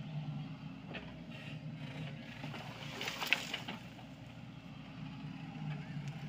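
Sany SY55C mini excavator's diesel engine running steadily as the machine works soil, with a brief burst of hiss and clatter about three seconds in.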